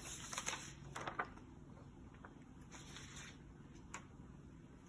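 Faint rustling of a paper sheet and a few light taps as a child's hands move it on a wooden table, over low room hum.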